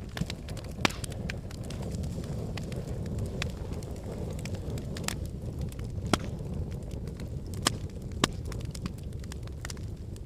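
Wood fire in a fireplace burning with a steady low rumble and scattered sharp pops and crackles, a few louder snaps standing out.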